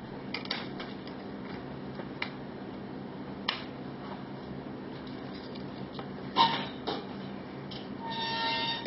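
Jigsaw puzzle pieces being handled: scattered light clicks and taps as pieces are picked up and pressed into place, the loudest a pair of knocks about six and a half seconds in, then a longer rustle near the end.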